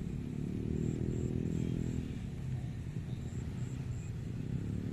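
A motor vehicle's engine rumbling, with a faint pitched hum that fades about two seconds in. Short high chirps repeat in little runs of three or four.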